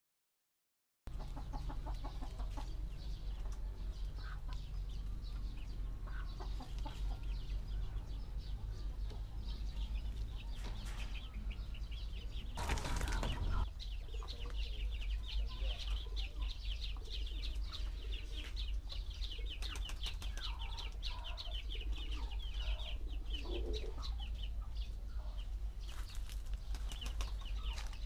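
Chickens clucking, with a short burst of wing flapping about halfway through and a fast, high ticking in the second half.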